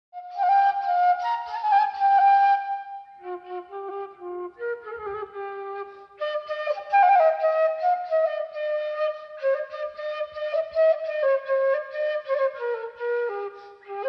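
Background music: a flute playing a stepping melody.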